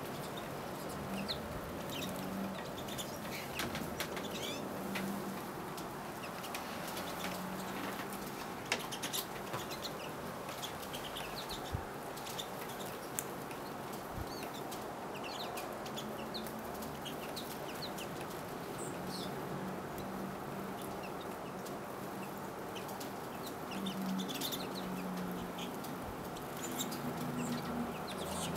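A flock of pine siskins and goldfinches at feeders calling with many short, high chirps and twitters, with scattered wing flutters.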